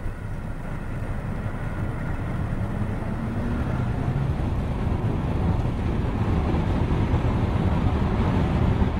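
A steady low rumble of motor-vehicle noise that slowly grows louder.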